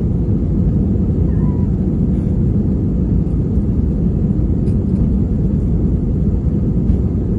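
Airbus A321neo cabin noise heard from a window seat: a steady low rumble of the engines and airflow, with no change in level.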